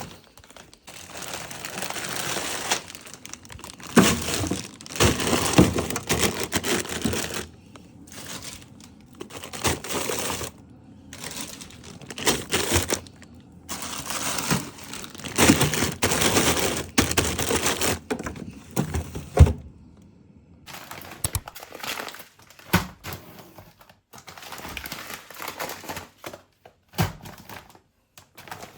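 Grocery packaging crinkling and rustling as it is handled, in irregular stretches, with scattered knocks of items being set down; quieter and sparser in the last several seconds.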